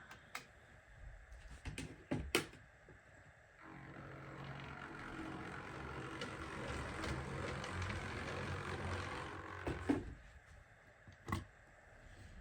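OO gauge model locomotive running along the track for about six seconds, a steady motor-and-wheel rumble, with a few sharp clicks before and after.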